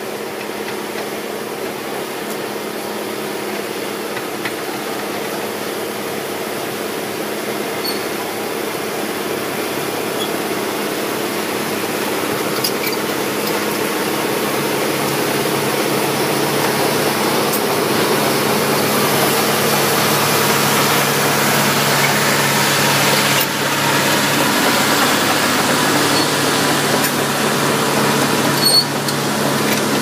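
Caterpillar crawler dozer's diesel engine running steadily under load as it pulls a blade plough through the soil, growing gradually louder as the machine approaches.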